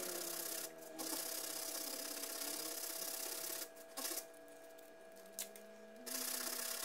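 Hand sanding of dried body filler with 80-grit sandpaper wrapped around a cut-down paint stick: a steady scratchy rasp of back-and-forth strokes. It stops for about two seconds past the middle, then starts again. This is the rough shaping stage, knocking the cured filler down level with the panel.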